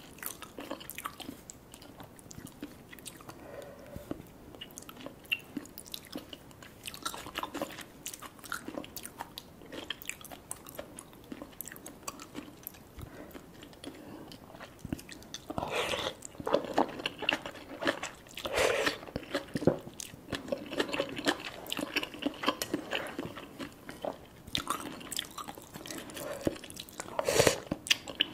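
Close-up eating sounds of a person chewing and slurping instant noodles in spicy Korean stew, with wet smacking clicks throughout. The mouth sounds get louder and fuller about halfway through.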